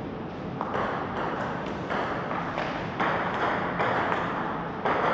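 Table tennis rally: the ball clicks sharply off paddles and the table, about two hits a second.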